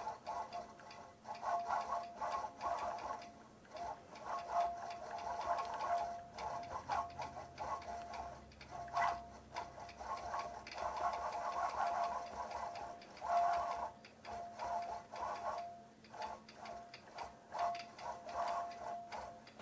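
Longarm quilting machine stitching: the needle runs in a rapid ticking with a steady motor tone, in spurts that stop and start several times as it is guided around the design.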